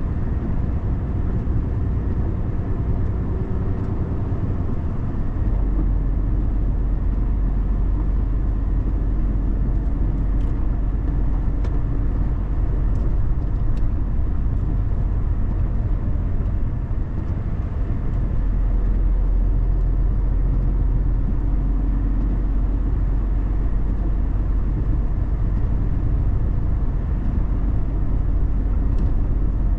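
A car driving on the road: steady engine and tyre noise, with the engine's pitch shifting as the speed changes. The low rumble gets louder about five seconds in and again past halfway.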